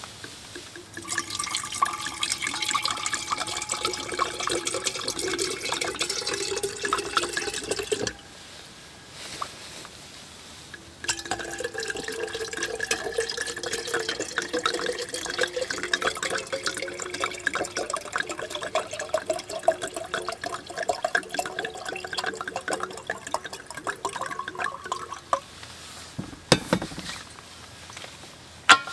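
Liquid poured from a large stainless-steel jug into a smaller insulated bottle, in two long pours with a short pause between. The tone of the filling bottle rises slightly as it fills. A couple of knocks near the end.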